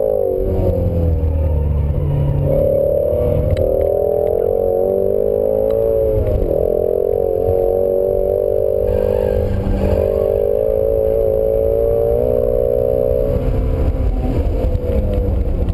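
Ford Shelby GT350's 5.2-litre flat-plane-crank V8 heard from inside the cabin, running hard under throttle as the car accelerates, over a low road and tyre rumble. The revs dip briefly about six and nine seconds in, and drop near the end.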